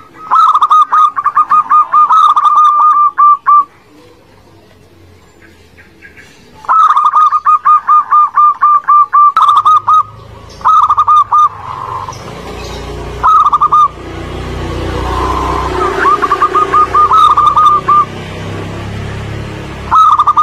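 Zebra doves (perkutut) cooing in bouts of rapid, evenly repeated notes: a long phrase at the start, another about seven seconds in, then several shorter bouts. From about ten seconds in a low rumbling hiss lies beneath the calls.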